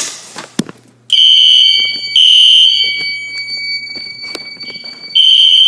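A fire alarm pull station is pulled with a short clack, and about a second later the house's fire alarm horns start: a loud, high-pitched electronic tone in two blasts of about a second each, a lull, then two more blasts near the end, over a fainter steady high tone.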